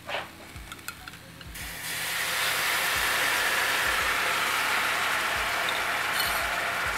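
Vegetable stock marinade poured into a hot pan of butter-seared king oyster mushrooms, which sizzles loudly and steadily from about two seconds in. Light crackling of the butter frying comes before it.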